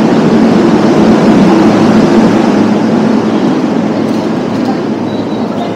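Electric commuter train in the station, a loud steady low rumble that fades gradually.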